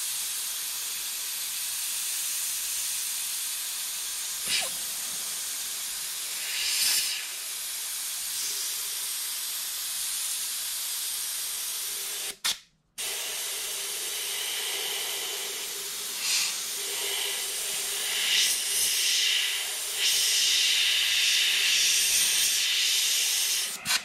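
Siphon-feed airbrush hissing as compressed air sprays paint in fine strokes. The air cuts off for about half a second near the middle, and the spray swells louder several times in the second half.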